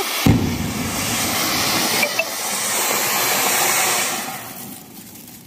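Flower-pot fountain firework spraying sparks with a loud, steady hiss that fades away about four seconds in as it burns out.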